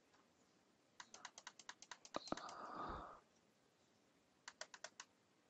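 Light, quick clicking at a computer: a run of about a dozen clicks about a second in, a short soft noise, then four or five more clicks near the end, over near silence.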